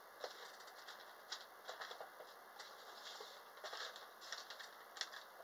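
Faint rustling and scattered light clicks of packets and packaging being handled by hand.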